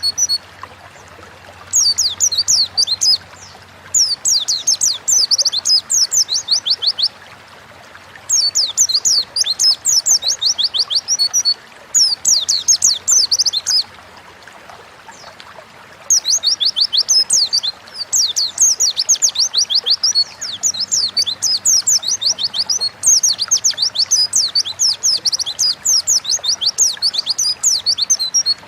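A white-eye (pleci) singing in full voice: rapid strings of high, quick-sweeping chirps in phrases of a few seconds broken by brief pauses, with a long unbroken run in the second half.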